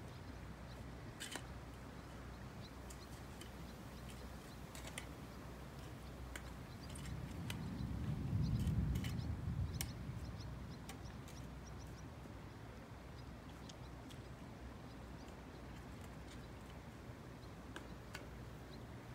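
Distant thunder from an approaching thunderstorm: a low rumble that swells about seven seconds in, peaks, and fades away over about four seconds, with faint scattered clicks around it.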